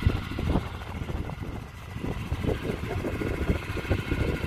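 Small Can-Am quad bike's engine idling, a steady low rumble with irregular uneven pulses over it.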